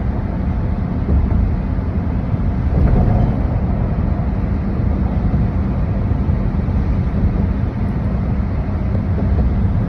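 Steady road and engine noise of a moving car, a low rumble with no sharp events.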